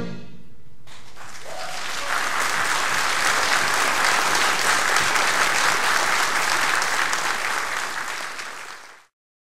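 Concert audience applauding at the end of a concert band piece: the clapping builds over about a second, holds steady, then fades and cuts off abruptly near the end.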